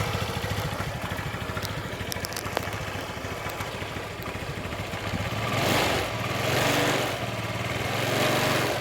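Motorcycle engine idling steadily, being warmed up on freshly changed oil. In the second half, three swells of louder rushing noise rise over it.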